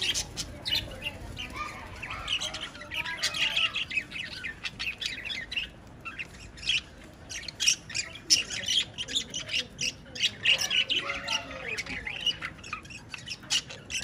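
Budgerigars chattering: a steady stream of short chirps and squawks that goes on without a break.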